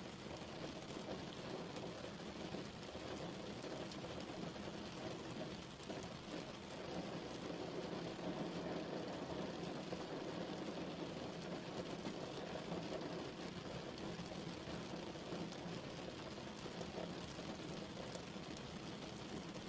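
Steady rain falling, a continuous even patter of drops with no let-up.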